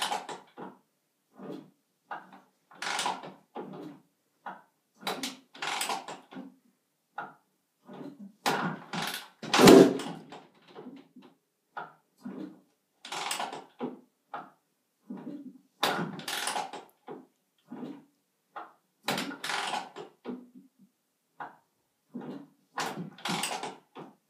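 1999 Honda CR125's two-stroke engine being kicked over again and again, about one stroke a second, without catching: cold-start attempts on a bike that won't fire. The loudest kick comes about ten seconds in.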